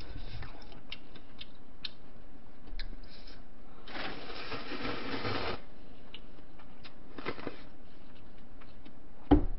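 Slurping cold ramen noodles from a bowl held up to the mouth: one long slurp about four seconds in, lasting under two seconds, and a shorter one a little after seven seconds. Light clicks of chopsticks and tableware run throughout, and a dull thump comes near the end.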